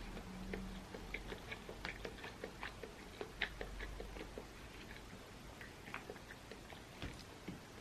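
A person chewing food close to the microphone, with a run of small wet clicks and smacks that thin out in the last few seconds.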